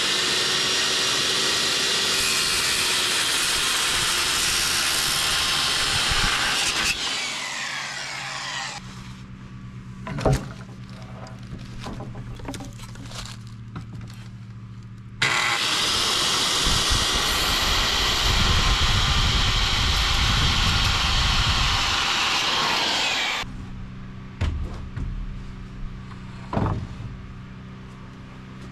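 Power saw cutting through a 2x6 board twice, each cut running several seconds at a steady high whine-and-hiss before stopping abruptly. Between the cuts a steady low hum continues, with a couple of sharp knocks.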